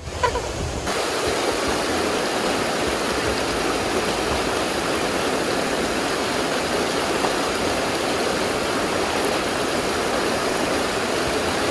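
Waterfall cascading over rocky cliffs: a steady, even rush of falling water.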